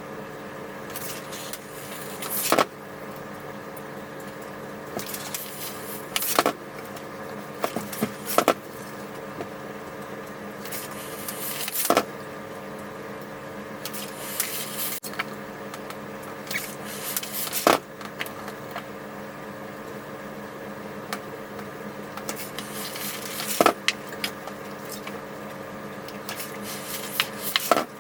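Iron pressing a narrow double hem in fabric: short hisses, each ending in a sharp knock, come about every three to six seconds over a steady hum.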